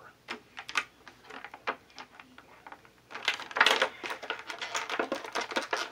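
Crinkling and clicking of a clear plastic packaging tray and bag being worked by hand to free an action figure. A few scattered clicks come first, then a louder, denser crackling from about three seconds in.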